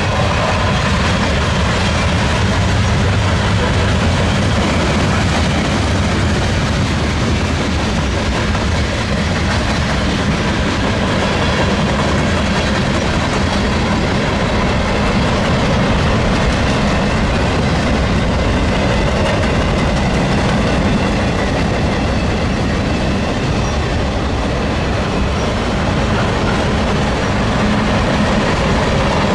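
Railroad cars of a passing train rolling by close at hand, a steady loud rumble with the clatter of wheels over the rails.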